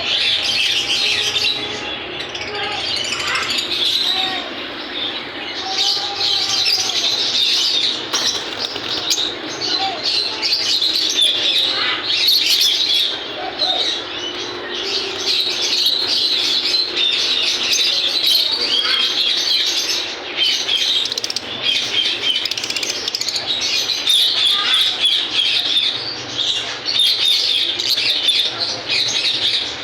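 Many caged parrots chirping and chattering at once, a dense continuous din of high chirps.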